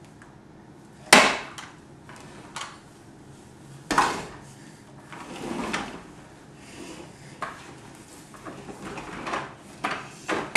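Plastic toy baby walker knocking and clattering against a hardwood floor as it is tipped and set down. Two sharp knocks come about a second in and about four seconds in, with lighter knocks and scuffs between.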